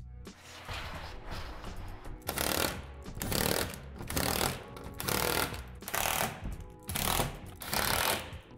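Cordless power drill driving screws in short bursts, about seven runs of half a second each starting about two seconds in, fastening a roof truss to a plastic shed wall. Background music plays underneath.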